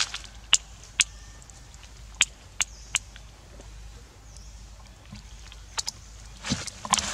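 Dry leaf litter crackling and rustling as a baby monkey eats and shifts about: a few sharp separate crackles in the first three seconds, then a longer rustle near the end as it moves.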